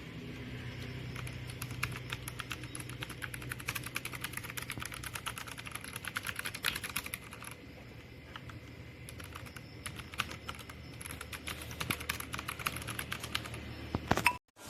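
Typing on an NYK Nemesis Daemon82 wireless mechanical keyboard: rapid runs of key clicks, thinning out briefly about halfway through.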